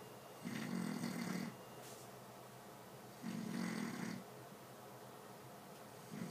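Snoring in a slow, regular rhythm: two full snores about a second long each, roughly three seconds apart, and a third starting just at the end.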